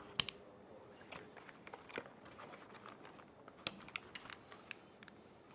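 Faint, scattered small clicks and taps from a Taurus G2c 9mm pistol being handled, with the most distinct click a little under four seconds in.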